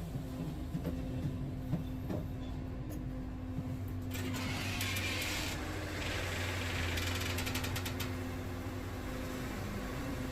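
Wood-Mizer LT70 sawmill running with a steady, even hum, not sawing. A few light clicks sound in the first two seconds, a burst of hiss comes about four seconds in and lasts a second and a half, and a few more clicks follow about seven seconds in.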